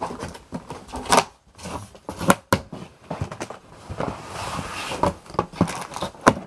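A cardboard shipping box being cut open and handled: clicks and snips of scissors on the packing tape, with knocks and scrapes of the cardboard. A longer scraping rustle comes about four seconds in as the box is lifted and its flaps opened.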